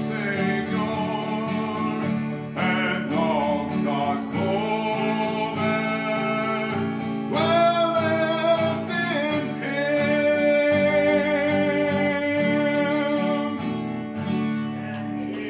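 A man singing a gospel song to his own acoustic guitar, holding long notes over the strummed chords.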